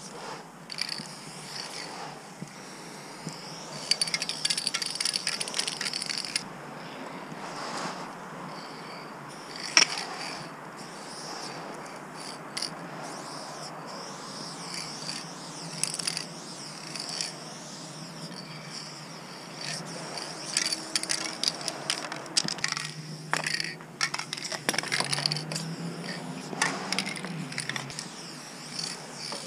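Aerosol spray-paint can hissing in repeated bursts of varying length as lines and fills are sprayed, with scattered short clicks and light rattles in between.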